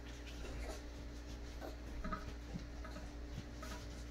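Faint, irregular scratching and tapping of puppies' claws on a bathtub, with towel rubbing, over a steady low hum.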